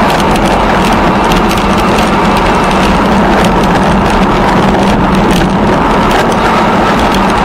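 Continuous loud rolling rumble with many irregular crackles and rattles, like bicycle tyres running over a gravel towpath.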